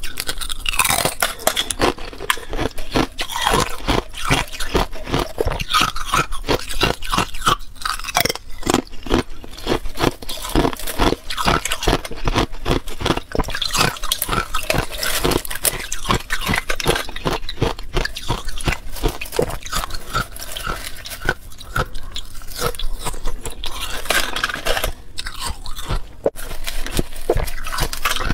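Thin, hard balloon ice being bitten and chewed, a dense run of rapid, crisp crunches and cracks.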